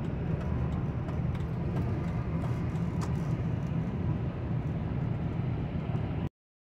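Steady road and engine rumble inside the cabin of a 2002 Buick LeSabre driving at highway speed. It cuts off suddenly about six seconds in.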